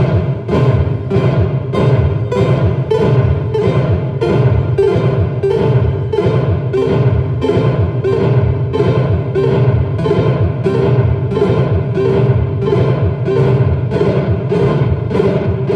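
Electronic music from hardware synthesizers and a sampler: an even pulse of about two beats a second over a low bass line and a repeating mid-pitched synth tone.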